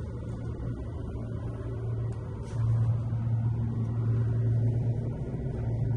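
Cable-drawn automated people mover (Poma-Otis airport tram) running along its guideway tunnel, heard from inside the car: a steady low hum that gets louder about two and a half seconds in.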